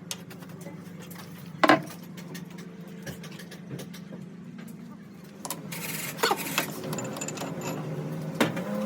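A machine hums steadily, with one loud sharp knock a little under two seconds in. The sound grows busier and louder about halfway through, with more knocks and clatter.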